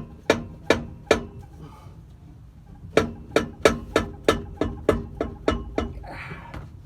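Repeated sharp, ringing metal knocks as a catalytic converter is tapped onto an exhaust pipe: four quick knocks at the start, a pause of about two seconds, then a steady run of about ten more at roughly three a second.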